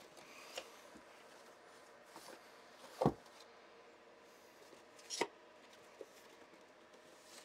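Paper manuals and a cardboard software box being handled and set down on a wooden table: a deep thump about three seconds in, a second knock about two seconds later, and a few small taps and light paper handling between them.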